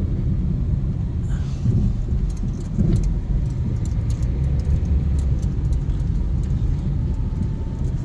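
Steady low rumble of a moving car heard from inside the cabin: engine and tyre road noise, with faint light ticks and rattles now and then.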